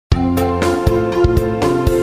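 Upbeat background music with a steady beat of about four hits a second over held bass and chord notes.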